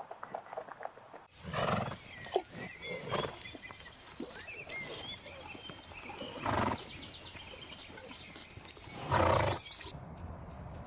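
A large animal calling three times, each call about half a second long, with small birds chirping in the background between the calls.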